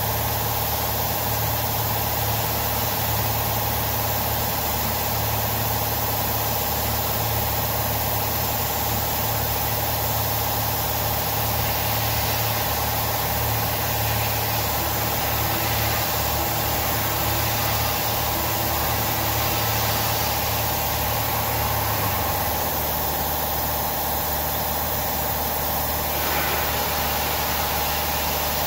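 CNC-converted Grizzly G0704 milling machine running as it machines holes in aluminium extrusion: steady spindle and motor hum over a constant hiss. The low hum drops away about three-quarters of the way through and the tone shifts again shortly after, as the machine moves on in its program.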